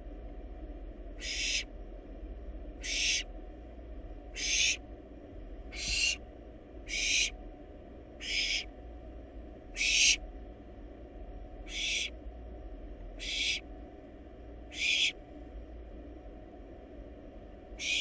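Barn owl nestling giving its hissing, rasping begging call. About ten short hisses are spaced a second or two apart, over a steady low hum from the nest box.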